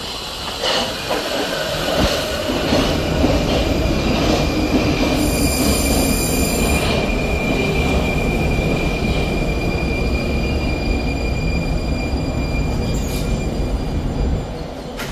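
Metro train running on its rails: a loud, steady rumble with a thin, steady high tone riding over it. It builds up about two seconds in and drops away just before the end.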